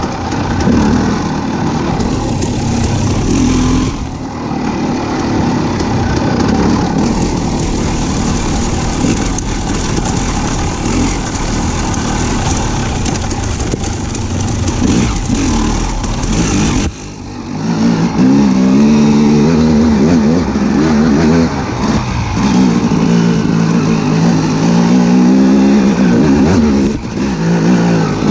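A motor vehicle's engine running loud, its pitch rising and falling as it is revved. There is a brief drop about two-thirds of the way through.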